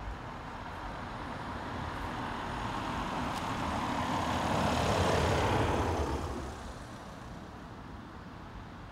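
Race escort motorcycles and a car driving past, the noise building up, loudest about five to six seconds in, then fading quickly.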